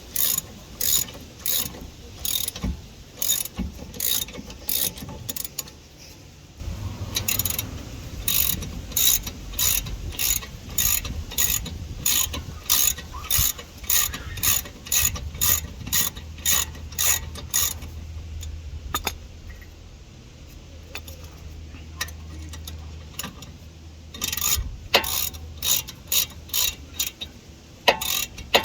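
A 1/2-inch socket ratchet clicking over and over as it works a nut loose anti-clockwise, a few clicks a second. The clicking thins out about two thirds of the way through, then picks up again near the end.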